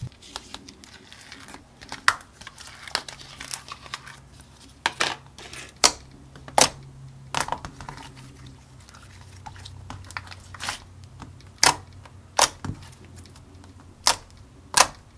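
Thick clear slime being squeezed, stretched and poked by hand, giving irregular sharp pops and clicks about once or twice a second, with soft crinkling from the plastic tub near the start.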